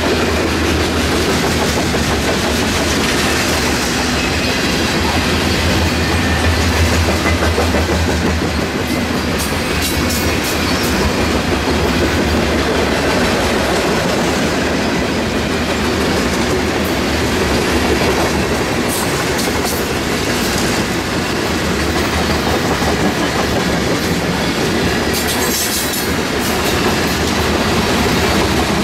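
Freight train of covered grain hopper cars rolling past at close range: a steady rumble of steel wheels on rail with rhythmic clickety-clack over the joints, and a few brief high-pitched squeaks from the wheels.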